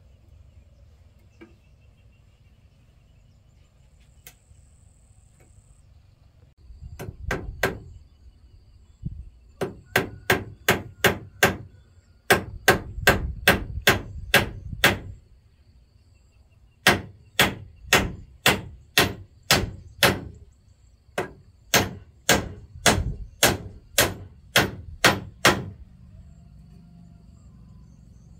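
Hammer striking wood in quick runs of sharp blows, about three a second, with short pauses between runs; the hammering starts several seconds in and stops shortly before the end.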